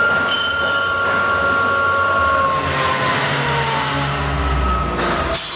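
Siber Hegner bed-type vertical milling machine running on its variable-speed drive, with a steady whine. About two and a half seconds in, the whine slides down in pitch as the speed is lowered, followed by a deeper rumble and a sharp clunk near the end.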